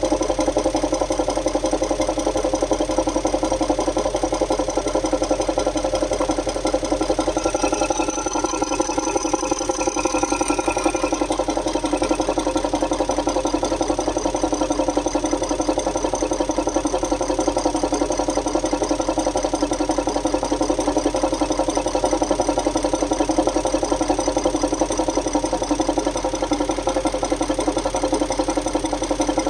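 Audi 4.0 V8 TDI diesel engine idling with a loud, rhythmic metallic tapping knock, fast and even. The owner suspects a dry hydraulic lifter, timing chain, or a leaking or faulty injector on cylinder 8, which shows a high fuel-quantity deviation.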